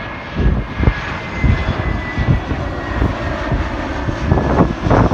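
Twin-engine jet airliner flying low on landing approach, a steady engine rush with a thin high whine, broken by irregular low thumps.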